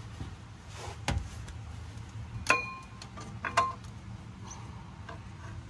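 Metal clinks from a steel clutch pressure plate being fitted against the flywheel and onto its dowel pins. There is a dull knock about a second in, then two sharper clinks that ring briefly, about two and a half and three and a half seconds in.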